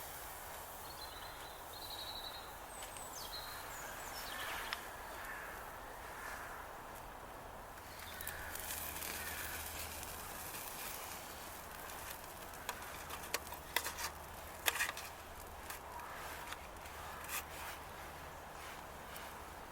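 Outdoor ambience with a bird chirping briefly in the first few seconds, then a cluster of sharp clicks and knocks in the second half.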